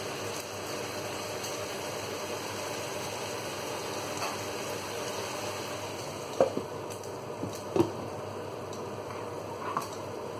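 A saucepan of mackerel, zucchini and bok choy cooking on the stove with a steady sizzling hiss. About six seconds in, a glass lid is set on the pan with two sharp clinks a little over a second apart, and a lighter knock comes near the end.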